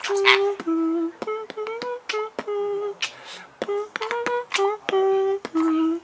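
A man beatboxing: a hummed tune of short notes woven together with sharp mouth clicks and a few hissing snare-like bursts.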